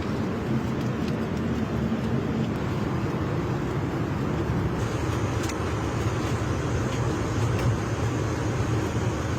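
Steady low rumble of an airliner cabin, the even noise of the engines and air system, with a few faint ticks about five seconds in.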